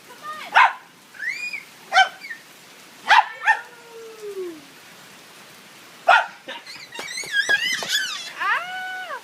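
A dog barking: a few sharp barks spaced a second or more apart, then a run of wavering high whines and yips, and a drawn-out rising-and-falling call near the end.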